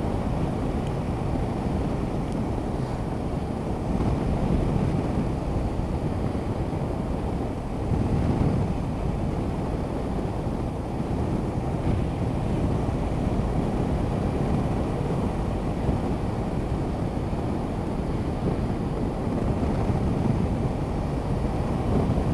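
Steady low wind rush over the microphone of an action camera on a Honda CB500X motorcycle riding along a country road at speed, mixed with the bike's running and road noise, swelling slightly now and then.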